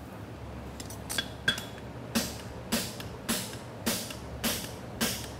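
Hand hammer striking red-hot horseshoe bar stock on a steel anvil as the toe of the shoe is forged: a few light clinks about a second in, then steady ringing blows about twice a second from about two seconds in.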